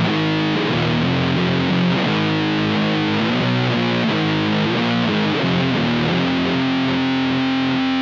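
Electric guitar played through the Magic Pedals Cthulhu Fuzz, a one-knob high-gain silicon fuzz, into a Matamp GT120 amp, playing a heavy fuzzed doom riff. From about six seconds in, a note is left ringing.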